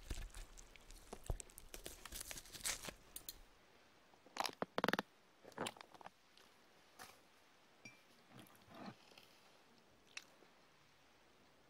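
Close-miked ASMR eating sounds: dense crunching and chewing for the first few seconds, then a few louder wet mouth sounds around the middle, thinning out to occasional small clicks near the end.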